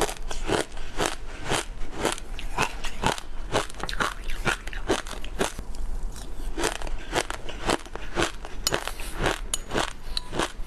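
Crunching as a mouthful of crisp mixed seeds is chewed: a steady run of sharp crunches, about two to three a second.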